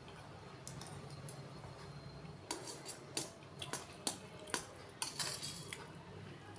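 A run of about eight sharp, light clicks and clinks over roughly three seconds, starting about halfway in, like small hard objects being handled.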